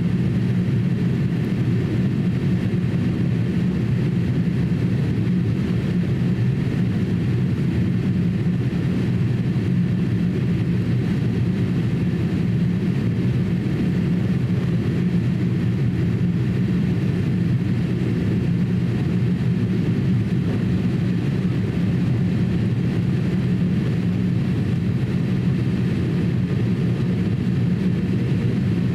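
Steady cabin noise inside a Boeing 787-8 airliner on its approach: a constant low drone of engines and airflow with a fainter hiss above it, unchanging throughout.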